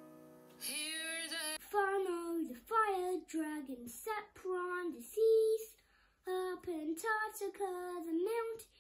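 A held piano chord dies away, then a single female voice sings a melody unaccompanied from about a second in, with a short pause near the middle.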